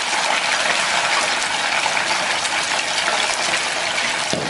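Tilapia (mujair) pieces deep-frying in hot oil in a frying pan: a steady, dense sizzle with constant fine crackling.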